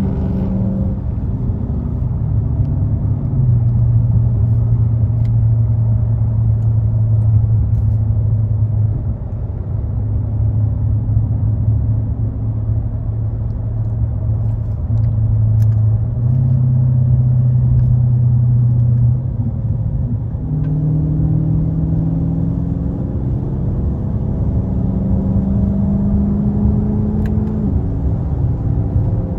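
Dodge Charger Scat Pack's 392 (6.4 L) HEMI V8 heard from the driver's seat while cruising at highway speed, with steady low rumble underneath. The engine holds a steady note for long stretches, then its pitch climbs in steps through the last third as the car speeds up to about 70 mph.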